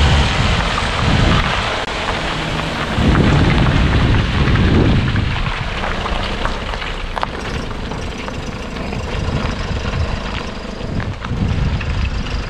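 Four-wheel-drive SUV with studded tyres pulling a boat trailer out of the water, its engine and tyres giving heavy low rumbles about one and three to five seconds in, with scattered sharp clicks later under a steady noisy wash.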